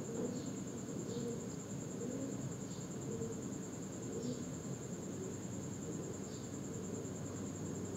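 Rice, beef and yakhni stock boiling in a pot: a steady low bubbling with small pops every second or so, under a constant high-pitched whine.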